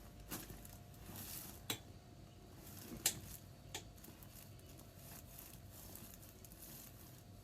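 Four short, sharp clicks and pops during a chiropractic jaw and neck adjustment, the loudest about three seconds in, over a faint steady hum.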